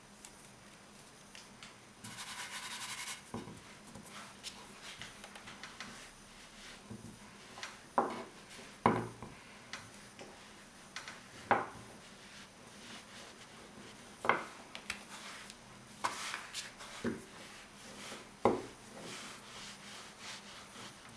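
Small plastic rolling pin rolling out fondant on a bamboo cutting board: low rubbing, a brief rustle near the start, and several sharp knocks against the wood in the second half.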